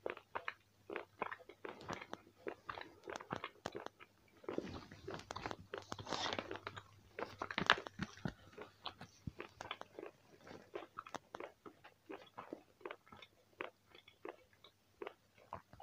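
Close-mic chewing of dried beef biltong: a run of short chewing clicks, several a second. Near the middle comes a louder rustle of a few seconds as the plastic packet is handled.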